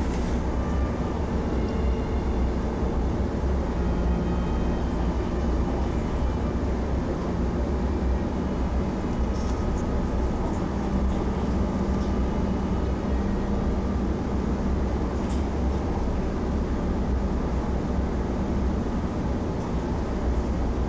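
Steady low hum of room background noise, like a fan or air conditioner, with a few faint light clicks about halfway through.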